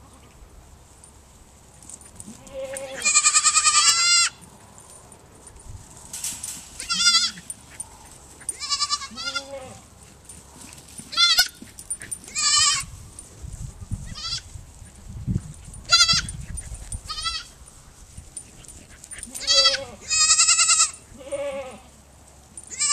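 Goat kids bleating again and again, about a dozen quavering calls, the longest a few seconds in and another near the end.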